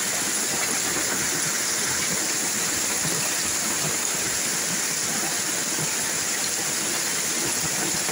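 Heavy rain falling steadily during a hailstorm, an even hiss with no separate impacts standing out.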